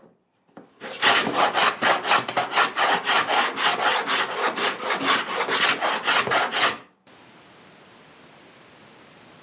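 Hand tool working wood in quick, evenly spaced strokes, about three or four a second, that stop abruptly about seven seconds in, leaving a faint steady hiss.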